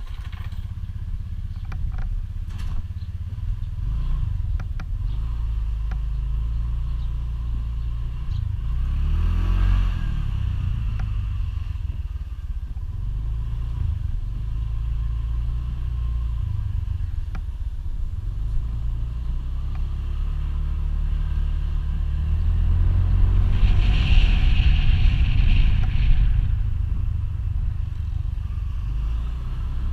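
Motor scooter being ridden along a street: its engine runs under a heavy low rumble of wind on the camera microphone. The engine note swells and rises in pitch twice, about ten seconds in and again near the end.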